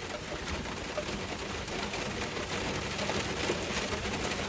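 Steady rain falling: an even hiss with the patter of drops.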